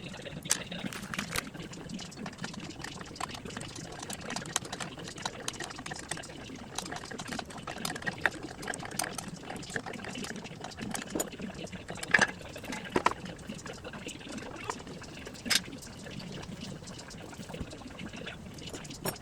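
Oil pouring and trickling steadily from the Grasshopper 721D mower's transmission drain into a pan, with scattered sharp clicks and knocks of tools and parts being handled.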